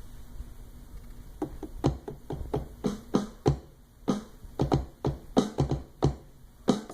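Drum samples triggered from the pads of a Native Instruments Maschine MK2, tapped lightly and irregularly: short hits of uneven loudness begin about a second and a half in. Light touches are registering on the pads with the soft 3 velocity curve.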